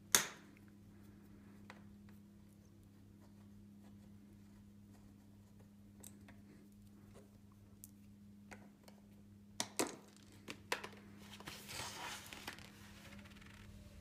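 Small clicks and handling noises from screws and washers being taken out of a plastic unicycle saddle bumper with a hex key. There is one sharp click at the start, a few quieter clicks about ten seconds in, then a short rustle.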